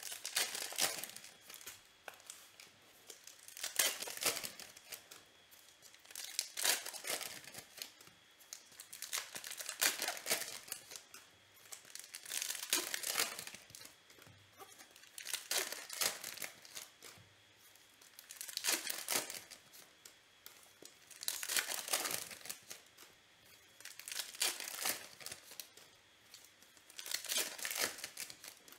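Foil trading-card packs being torn open and crinkled by hand, one after another, with a burst of crackling every two to three seconds.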